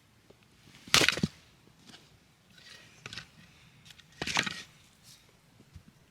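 Firewood splintering and cracking twice, about three seconds apart, each time in a quick cluster of sharp cracks, with a few faint clicks between.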